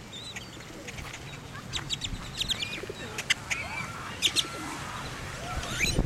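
Great-tailed grackles calling in a series of sharp clicks and short rising and falling squeaky whistles, which come thicker from about a second and a half in.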